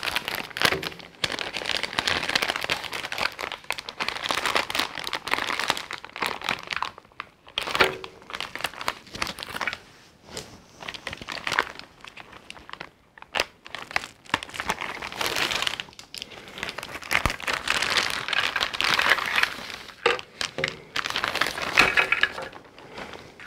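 Clear plastic parts bags crinkling and rustling as they are handled and opened by hand, in irregular stretches broken by short pauses.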